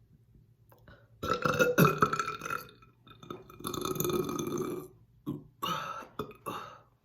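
A woman burping loudly, bringing up gas from chugged carbonated soda: a long burp about a second in, a second long one a little later, then a few short ones near the end.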